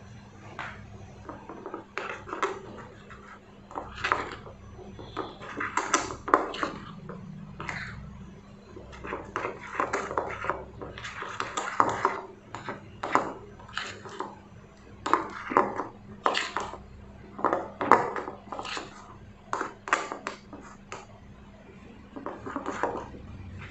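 Metal spoon stirring thick rice-and-urad-dal batter in a glass bowl: a run of irregular scrapes and clinks of the spoon against the glass.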